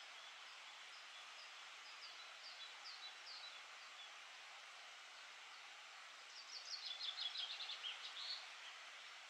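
Small songbirds calling outdoors: a string of short high chirps in the first few seconds, then a louder quick song of rapid notes falling in pitch from about six seconds in, over a faint steady outdoor hiss.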